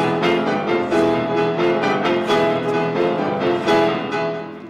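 Grand piano playing a run of full chords, struck about three times a second, dying away near the end.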